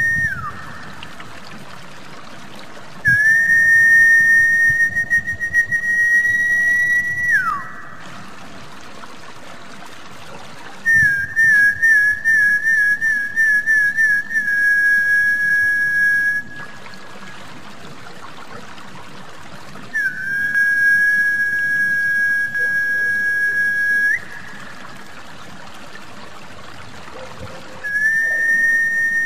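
Snakehead-fish lure whistle: long, high held whistles that recur about every eight seconds, some with a warbling trill and some ending in a falling glide, over steady trickling water. The call is meant to draw snakehead to the surface.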